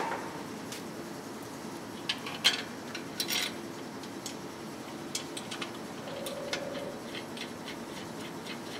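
Light metallic clinks and taps from a VW heater-box style exhaust's flanges and fittings, handled and fitted by hand. Two sharper clinks come a little after two and three seconds in, then a string of small ticks through the second half.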